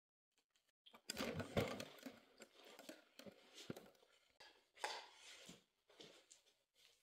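Rustling, scraping and knocking handling noise, starting about a second in after a moment of dead silence, with a few sharp clicks, from the phone being moved about while it films.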